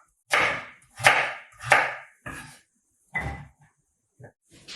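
Knife cutting food on a cutting board: about five unhurried chops, each with a short crunch, the last ones fainter.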